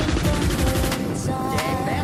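Background music: an instrumental passage with a fast, dense beat under a melody line.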